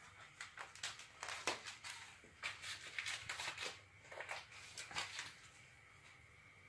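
Siamese cat rubbing its face on and rolling over a wooden floor: a run of irregular, scratchy, crinkly rustles and clicks that dies away after about five seconds.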